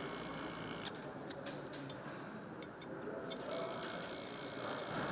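A driver tightens a camshaft bearing-cap bolt on a cylinder head, giving a few light metallic clicks and ticks. A steady hiss of workshop noise runs underneath and comes up louder again about three and a half seconds in.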